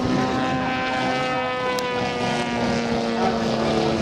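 A model aircraft engine running steadily, its pitch sinking slowly. A single sharp click is heard a little before the middle.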